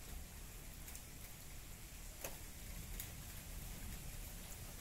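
Steady rain falling, with a few sharp drops striking close by, two of them clear near the middle, under a faint low rumble.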